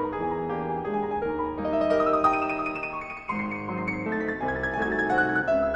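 Background piano music, notes and chords played in steady succession.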